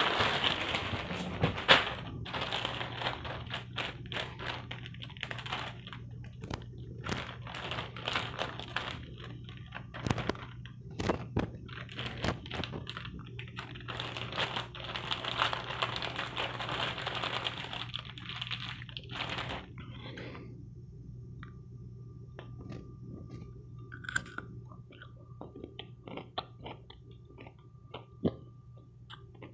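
Plastic bags and foil wrapping being handled, with crinkling and rustling for about twenty seconds, then only faint scattered clicks and rustles.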